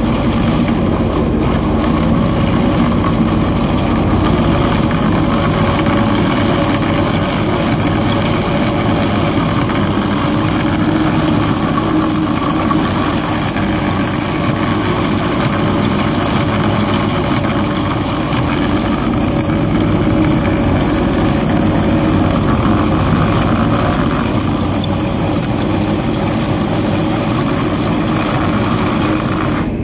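Excavator engine and hydraulics running steadily, driving a chain trencher attachment that digs soil in the trench beside a pipe.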